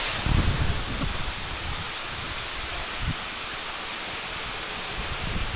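Waterfall rushing as a steady, even roar of falling water, with irregular low rumbles underneath.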